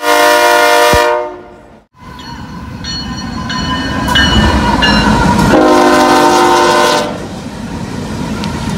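Diesel locomotive horns sounding over the rumble of passing freight trains, in several clips cut together. A held horn chord stops abruptly about two seconds in, then come several short horn blasts and a long loud chord from about five and a half to seven seconds.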